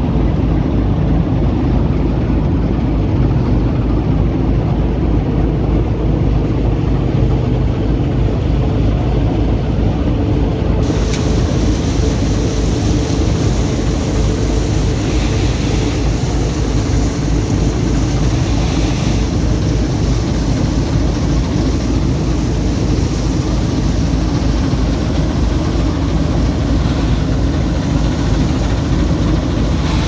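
Sampo-Rosenlew 2055 combine harvester running steadily as it cuts and threshes barley: a constant low engine drone with the machine's rushing mechanical noise over it.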